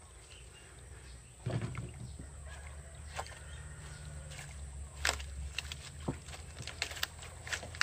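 Water sloshing and splashing in a shallow, draining pond, with a louder splash about a second and a half in and several sharp splashes or knocks after it, over a low steady hum.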